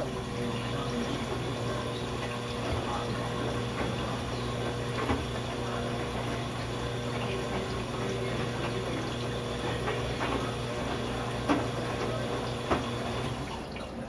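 Front-loading washing machine running mid-wash: water swishing in the drum over a steady motor hum, with a few soft knocks, the loudest two near the end.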